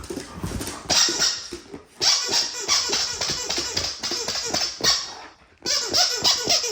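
Borzoi honking: a rapid run of short honks, several a second, broken by brief pauses.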